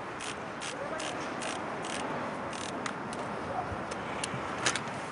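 City street ambience: a steady hum of traffic with scattered light clicks.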